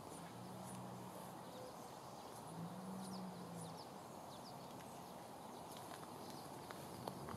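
Faint outdoor ambience: a steady low hum that swells twice, with many short, faint high bird chirps scattered through it.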